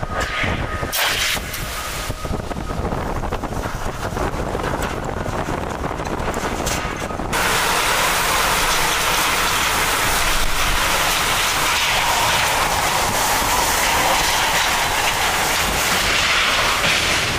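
Hurricane wind blowing hard across the microphone as a low, steady rumble. About seven seconds in it switches abruptly to a louder, even hiss of wind-driven rain.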